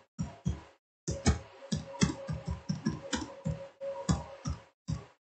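Typing on a computer keyboard: a run of irregular keystrokes, about three or four a second, with a short pause about a second in.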